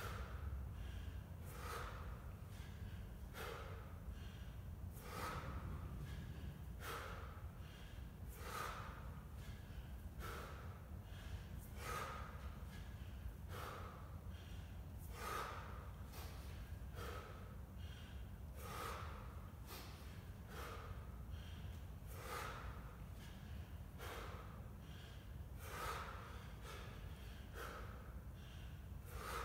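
A man breathing hard in sharp, forceful snorts and gasps, one strong breath about every 1.7 s with a weaker one between, in time with repeated overhead kettlebell lifts.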